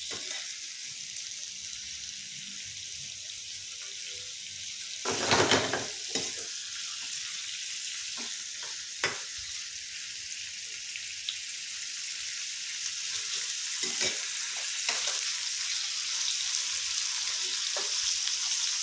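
Chicken pieces with lemongrass, ginger and garlic sizzling in hot oil in a frying pan, the sizzle growing a little louder toward the end. A metal spatula clicks and scrapes against the pan now and then, with one louder burst about five seconds in.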